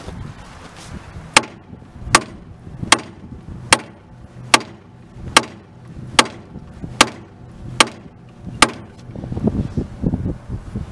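A hand sledge hammer strikes steel on the running gear of a 1937 Porter 0-4-0T steam locomotive, ten sharp metallic blows evenly spaced a little faster than one a second, as a tight rod pin or bushing is driven loose. Near the end the blows stop and lower scraping and handling noises follow.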